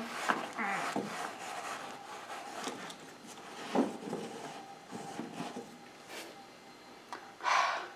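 Scattered light rubbing and scraping of hand-cleaning on the refrigerator's dusty underside and rear, over a faint steady hum. Near the end comes a short, louder rush of breath.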